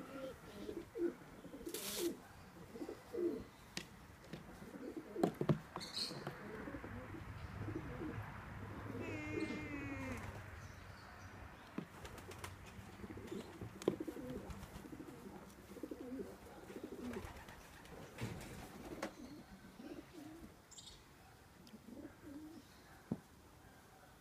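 Pigeons cooing in low, repeated phrases, with a few sharp clicks scattered through.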